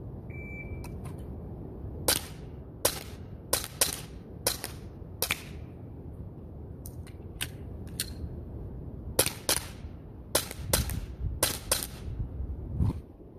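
Sig Sauer Air P320 X-Carry 4.5 mm CO2 blowback BB pistol firing more than a dozen sharp pops in quick strings, with gusting wind on the microphone. A short high beep sounds just before the first shot.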